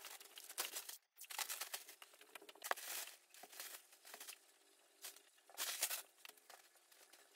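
Crinkly material being handled, crinkling and rustling in irregular bursts with small clicks, cutting out briefly about a second in.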